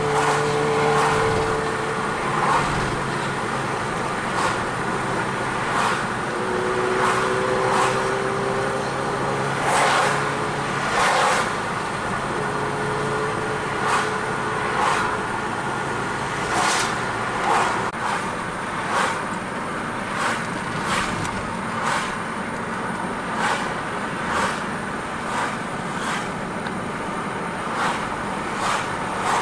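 Car driving on a road: steady engine and tyre noise, with short swishes recurring about once a second and a faint steady hum that comes and goes in the first half.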